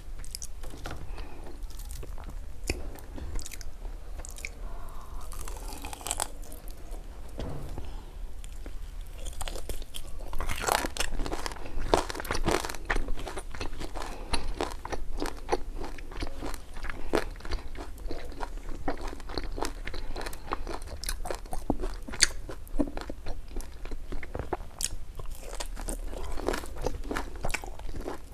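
Close-miked chewing and biting of crispy fried pork, with dense crackly crunches that grow louder and thicker about ten seconds in.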